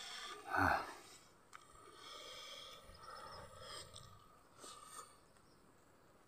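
Mouth sounds of a man eating rice and fried pork by hand: a short louder throat or nose noise about half a second in, then soft wet chewing and smacking with a few small clicks.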